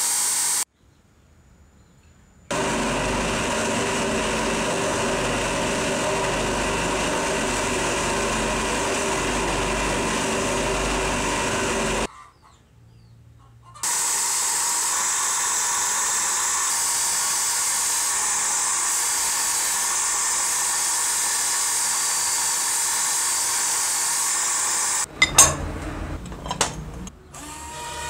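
Bench grinder running steadily with a buffing wheel while a small metal part is held against it for polishing. The sound stops abruptly twice for a second or two. Near the end it gives way to a few clicks and knocks of a screwdriver and metal parts on an aluminium housing.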